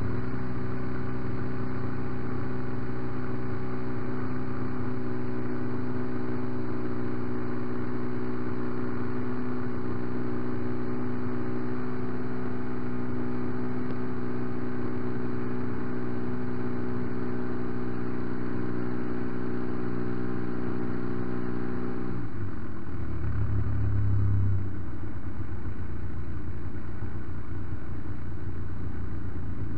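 Twin-cylinder MVVS 116 petrol engine of a large model Piper J-3 Cub tow plane running at steady high power, heard from on board. About 22 seconds in, the throttle comes back and the engine note drops sharply to a low, rougher running, with wind noise.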